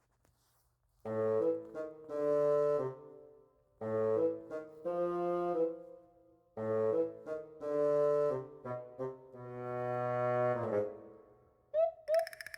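Background music: a sneaky, comic brass tune in three short phrases of held and staccato chords, turning to lighter plucked or struck notes near the end.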